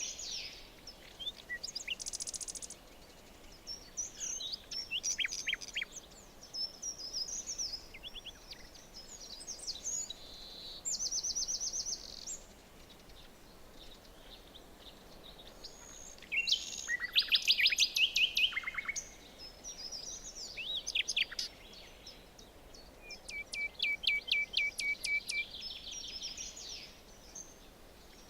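Several songbirds singing and calling over a faint steady background hiss, with quick trills and runs of rapid chirps at several points.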